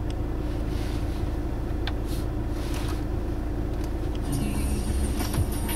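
Steady low hum of a Volkswagen car's engine idling, heard inside the cabin. A faint high hiss joins about four seconds in as the radio comes on.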